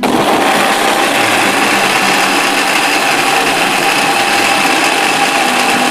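Small electric blender's grinder jar switched on and running steadily at high speed, with a constant motor whine. It is wet-grinding red bird's-eye chilies, ginger and galangal with a little water into a paste.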